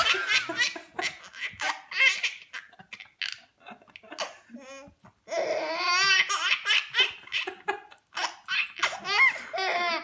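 A baby laughing hard: high-pitched belly laughs in three long bouts, with short breaks between them.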